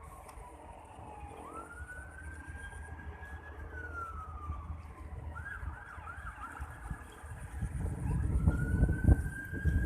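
A siren wailing, one tone sliding slowly down and up, switching to a quick yelp for about two seconds past the middle, then rising again. Low rumbling thumps grow louder over the last couple of seconds.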